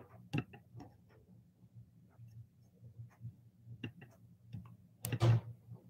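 Quiet room tone with a faint low hum and scattered, irregular small clicks, and one louder knock about five seconds in.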